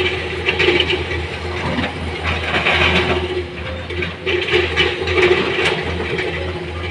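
Heavy-machinery diesel engine running steadily under irregular clattering and scraping, with a few short knocks.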